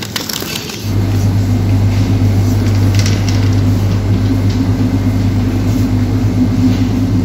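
Steady electrical hum of supermarket refrigeration equipment, setting in abruptly about a second in and holding one low pitch, with a few light clicks and rattles near the start and around three seconds.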